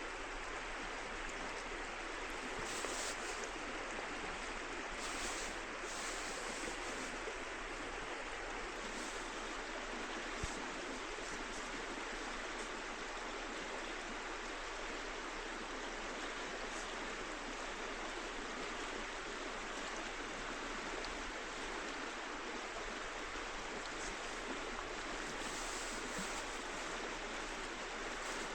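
Steady rushing of flowing river water, with a few brief faint high sounds over it.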